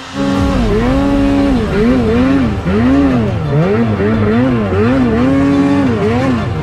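Snowmobile engine revving up and down in repeated throttle blips while riding through deep powder. Its pitch rises and falls about ten times, now and then held high for a moment.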